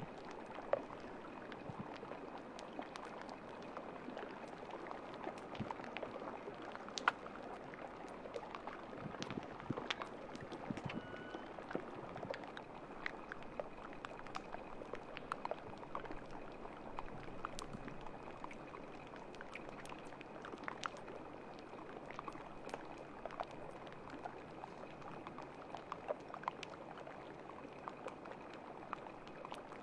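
Water at the edge of sea ice trickling and fizzing, with many small irregular ticks and crackles scattered throughout.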